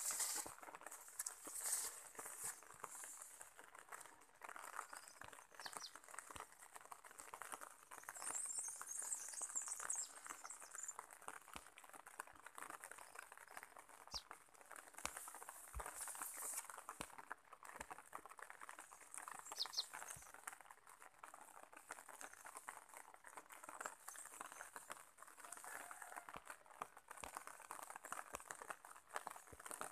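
Faint rural outdoor ambience: a soft steady hiss with scattered small clicks and rustles, and a few short high chirps, including a brief cluster about eight seconds in.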